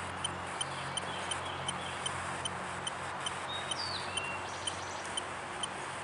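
A steady hiss under a short high ping that repeats evenly about three times a second. A little before the middle comes one short, falling bird-like whistle.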